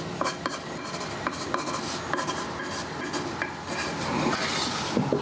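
Light rubbing and scraping of wooden jig pieces being handled and fitted together, with scattered small clicks and knocks.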